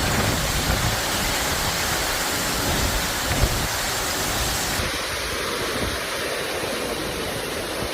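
Heavy monsoon downpour: a steady rushing hiss of pouring rain with an uneven low rumble underneath.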